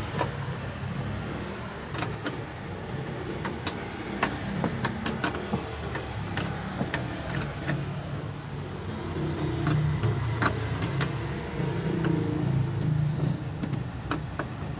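Scattered sharp clicks and knocks from hands and tools working at a pickup seat's base and floor mounting bolts, over a steady low hum inside the cab.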